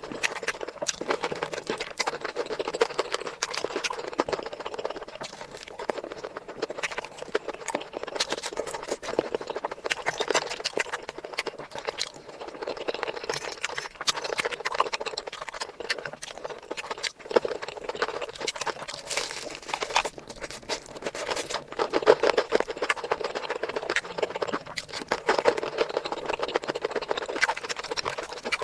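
Close-miked eating sounds: continuous chewing and mouth smacking with many small, irregular crunchy clicks.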